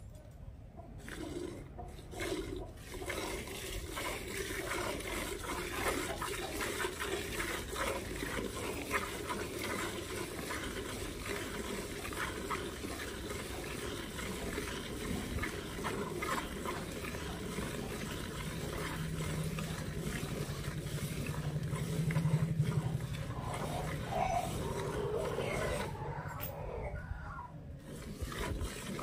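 Milk squirting from a cow's teats into a steel bucket during hand milking, a quick run of hissing, splashing strokes as the streams hit the milk already in the pail. A low steady drone joins for a few seconds about two-thirds of the way through.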